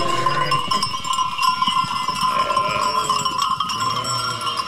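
A flock of sheep with livestock bells ringing steadily and overlapping, while a few sheep give soft bleats.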